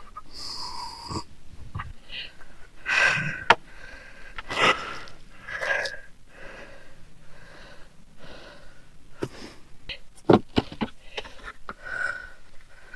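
Nails squeaking as they are pried out of old decking boards with a crowbar, with the wood creaking and several sharp knocks, a cluster of them about ten seconds in.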